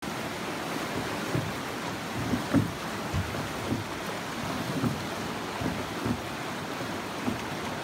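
Steady rush of fast river water around a drifting boat, with frequent short low thumps.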